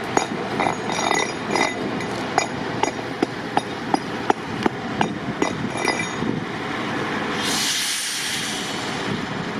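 Tram running along the track with steady rumbling and a run of sharp, irregular clicks and knocks from the wheels on the rails. About seven and a half seconds in, a hiss rises for a second or so and fades.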